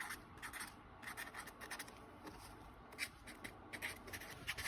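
Faint scratching of writing by hand, a string of short, irregular strokes.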